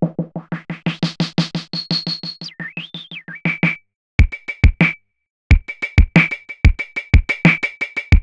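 Electronic drums from a Native Instruments Maschine drum machine: a fast roll of repeated hits that grows brighter as a filter opens, with a high synth tone that holds, then bends down and up and stops. After a short break and a couple of hits, a beat with a deep kick drum starts again.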